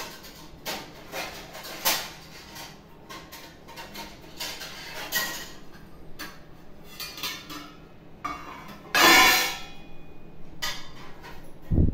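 Stainless steel kitchen plates and containers clinking and knocking as they are handled and set down on the counter, with a louder, longer clatter about nine seconds in and a dull thump near the end.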